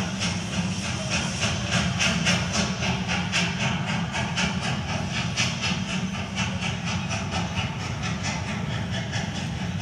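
Train sound effect: a rhythmic chugging hiss, about three to four beats a second, over a steady low rumble.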